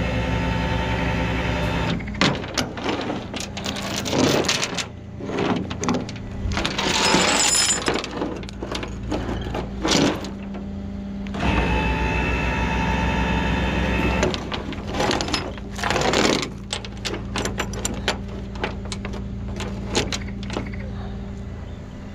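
Rollback tow truck's winch being run by remote, twice: a steady, loud machine drone, from the truck's raised engine speed and hydraulics, that stops about two seconds in and runs again for about three seconds past the middle, pulling the burned car's shell up the bed. Between the pulls, clanks, rattles and scraping of cable, chain and metal on the steel deck, over the truck's idle.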